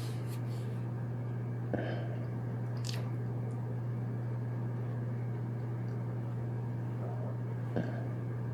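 Close-up chewing of a soft, moist mini chocolate cupcake, with a few short mouth clicks scattered through, over a steady low hum.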